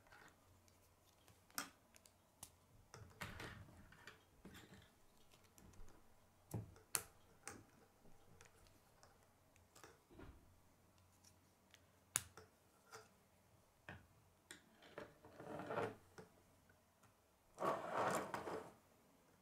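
Plastic K'nex rods and connectors clicking as they are snapped together by hand: scattered sharp clicks, with two longer rustling bursts of plastic handling near the end, the last the loudest.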